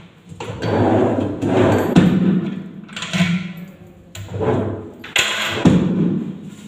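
A locked wooden wardrobe drawer being tugged by hand, rattling and knocking against its lock in several short bouts, which shows the lock holding.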